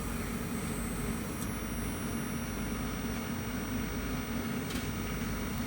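Steady low machine hum with a faint steady tone and a couple of faint ticks.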